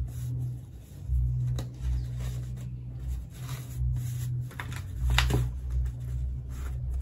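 Handling noise as fabric is pulled and smoothed down over a plastic bottle: soft rubbing, with a few brief rubs or light knocks and a steady low rumble underneath.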